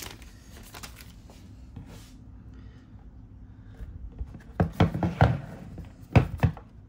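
Handling noise from a plastic power brick being turned over and set against a wooden desk: a few sharp knocks and clatters about two-thirds of the way in and again near the end, over a faint steady hum.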